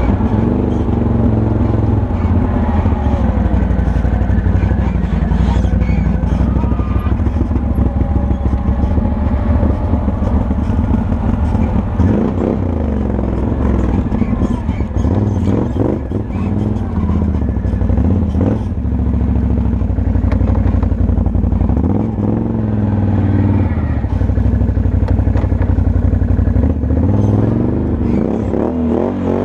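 Can-Am Outlander 1000 XT-P ATV's Rotax V-twin engine running under way, its pitch rising and falling repeatedly as the throttle is opened and eased off.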